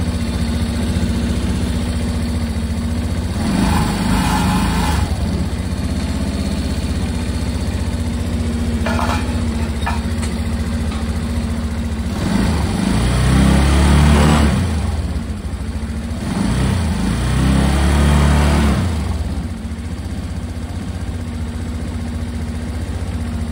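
Suzuki Address 125Z scooter's single-cylinder engine idling steadily, given a short blip of the throttle and then two longer revs that rise and fall back to idle.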